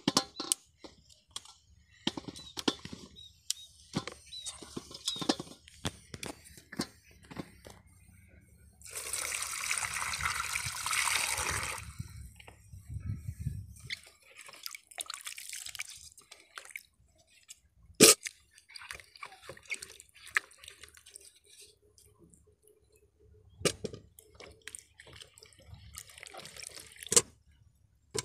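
Green mangoes being washed by hand in a steel bowl of water: a few seconds of splashing and pouring water near the middle, with scattered sharp knocks of the fruit against the metal bowl and pot.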